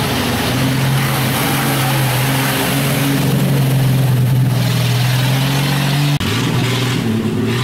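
Old Jeep's engine running steadily under load as it drives through deep muddy water, with water splashing. About six seconds in, the sound cuts off sharply and a different engine sound follows.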